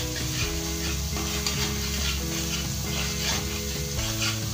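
Ground masala paste sizzling in hot oil in a kadai while a spoon scrapes and stirs it, about two or three strokes a second; the paste is being sautéed until its raw smell is gone.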